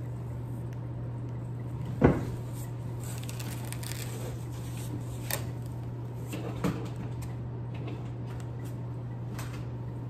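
Cardboard shipping box and its packaging being handled: one sharp knock about two seconds in, then a few lighter knocks and faint rustles, over a steady low hum.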